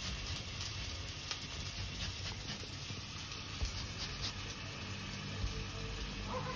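Orange peel rasped against a Microplane zester in short, irregular scraping strokes, over a faint steady sizzle of duck breast frying in a pan.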